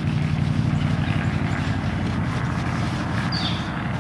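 Steady low motor drone, like a nearby engine running, with a brief high falling chirp near the end.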